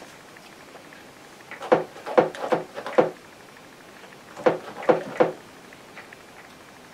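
A paintbrush dabbing oil paint onto a stretched canvas: two quick runs of soft taps, about five and then four. The painter is putting in raindrop marks.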